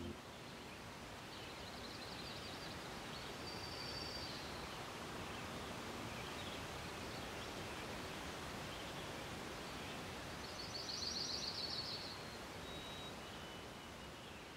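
Outdoor nature ambience: a steady soft hiss with birds calling high and thin, a few short trills and whistles, the loudest trill about eleven seconds in.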